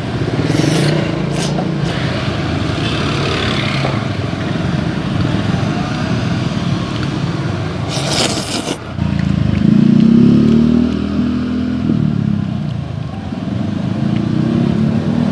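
Roadside traffic with motorbikes going past. There is a short hiss about eight seconds in, then one engine rises and falls in pitch as it passes.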